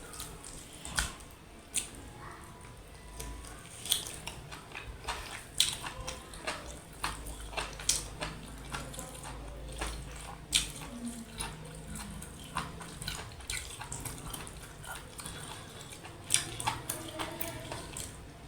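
Close-miked eating sounds: irregular wet clicks and smacks from chewing mutton curry with rice and dal.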